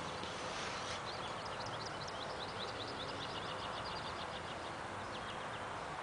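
A small songbird singing a rapid run of short, high chirps that lasts about four seconds, over a steady outdoor background hiss.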